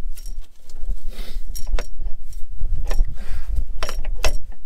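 Metal tools and fittings clinking in sharp, irregular clicks as hands work at a tractor's diesel fuel injection pump, over a low, gusty rumble of wind on the microphone.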